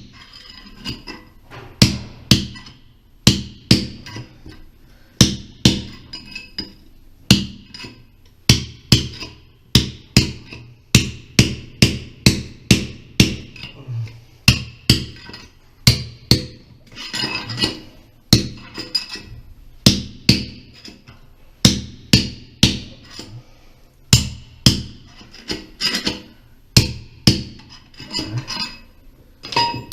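Hammer striking metal in a long run of uneven blows, roughly one or two a second, each with a short metallic ring, while a new cast iron toilet flange is worked into place.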